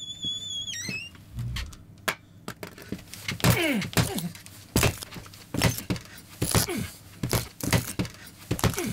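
A man stamping hard on a studio floor: a run of heavy thuds, about one or two a second, many with a short falling-pitch cry. A brief high electronic tone sounds at the very start.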